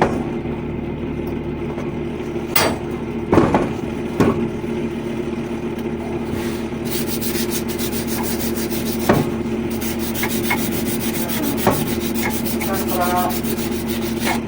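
Sandpaper rubbing on a copper pipe to clean it for the leak repair, with a few knocks along the way. A steady machine hum runs underneath.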